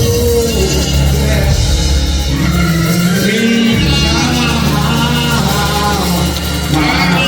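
Gospel music in a church: singing over instrumental accompaniment with sustained, gliding vocal notes.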